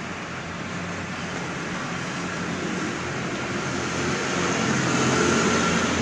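Bull Power 565 tractor's turbocharged diesel engine running, getting louder from about four seconds in as a high turbo whine comes up.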